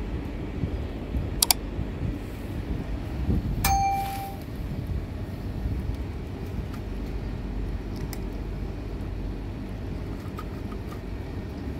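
Steady low rumble of street traffic. About a second and a half in there is a sharp click, and near four seconds a single ringing bell ding, the sound effect of a subscribe-bell reminder.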